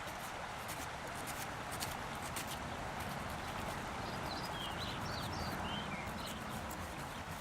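Outdoor ambience: a steady background hiss with scattered sharp clicks throughout, and a few short bird chirps around the middle.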